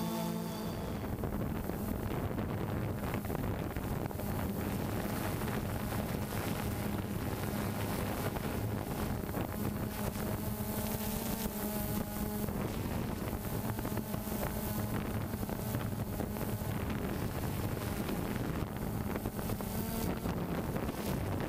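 DJI Phantom 2 quadcopter's electric motors and propellers running with a steady hum, heard from the onboard camera along with wind rushing over its microphone.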